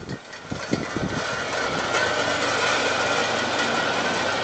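Large electric pedestal fan running, its air stream buffeting the microphone with low thumps in the first second, then a steady rushing with a thin steady tone.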